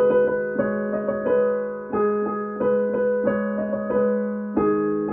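Background music: a piano-like keyboard melody, one note struck about every half second over a held low note.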